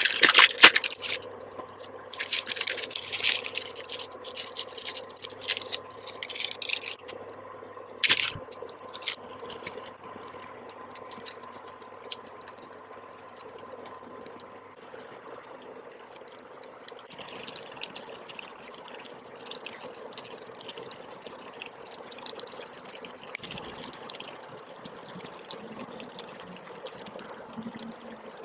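Plastic instant-noodle packets crinkling and tearing open for the first several seconds, with a sharp rip near the end of that stretch. Then noodles simmering in water in an electric skillet: a quieter steady hiss with small pops and crackles.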